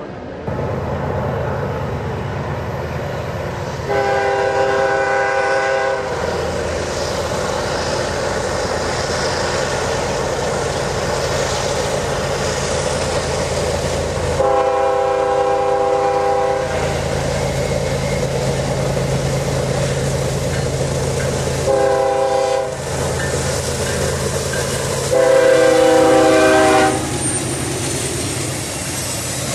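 BNSF diesel freight locomotives approaching and passing, engines running steadily under a multi-tone air horn blowing long, long, short, long: the standard signal for a grade crossing. The last blast is the loudest and lower in pitch as the lead locomotive draws alongside.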